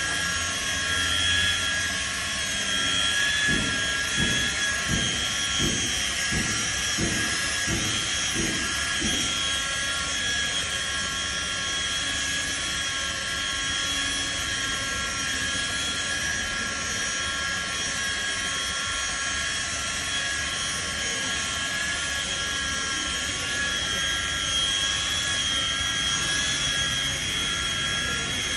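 Electric rotary polisher running with a steady high-pitched whine as its foam pad buffs a car's paintwork. From about three to nine seconds in, a run of low regular thuds sounds under it, about one and a half a second.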